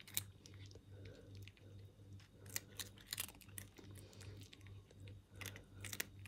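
A cat crunching dry kibble eaten from a hand: irregular crisp crunches and chews.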